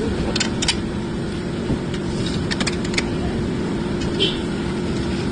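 Car running: a steady low engine and road rumble, with a few faint short clicks.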